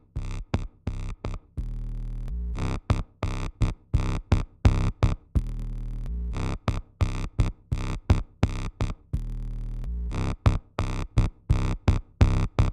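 Electronic background music: a drum-machine beat over steady synthesizer bass notes.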